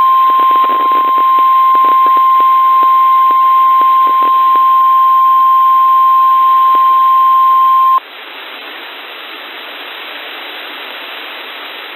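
NOAA Weather Radio 1050 Hz tone alert: one steady high tone over radio static with scattered crackles. It cuts off sharply about eight seconds in, leaving the receiver's hiss. This is the weekly test of the tone that sets off the alarm on weather-radio receivers.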